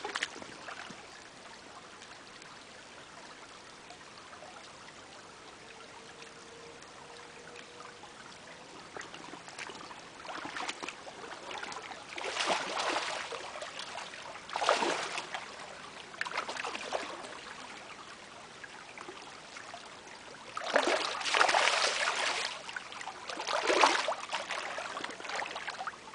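Shallow creek water trickling steadily, then about six loud splashes over the second half, a few seconds apart.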